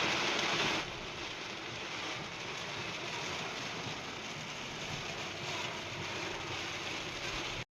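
Steady rushing noise, louder for about the first second, then even until it cuts off suddenly near the end.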